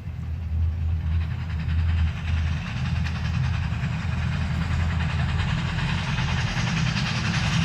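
Train sound effect played over the show's loudspeakers: a train running on rails, a steady low rumble with hiss and clatter that builds from about a second in.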